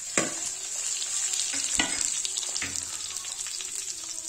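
Boiled amla (Indian gooseberry) pieces sizzling in hot mustard oil as they are spooned into the kadhai, a steady frying hiss, with three sharp knocks of the spoon against the pan.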